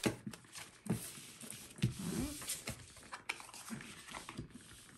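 Tarot cards being drawn from a deck and laid down on a cloth-covered table: a series of soft taps and slides, with a short rising-and-falling vocal sound about two seconds in.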